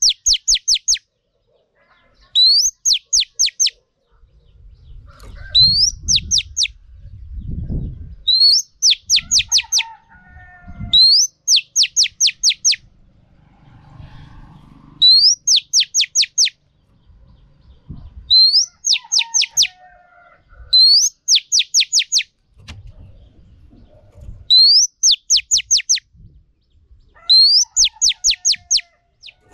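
Female oriental magpie-robin calling in its cage: a rising note followed by a rapid run of about five sharp downward strokes, the phrase repeated every two to four seconds.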